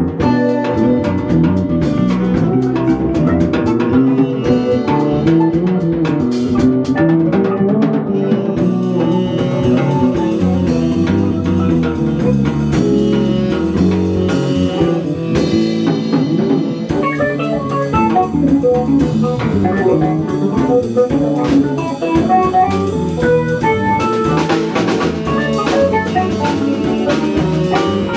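A small live band playing an instrumental piece: electric guitar and bass over a drum kit with frequent cymbal strokes.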